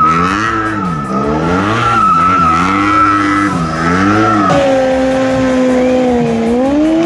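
Stunt motorcycle drifting in tight circles, its engine revving up and down on the throttle while the rear tyre squeals. About four and a half seconds in the revs settle and hold high as the rear tyre spins in a burnout, then rise again near the end.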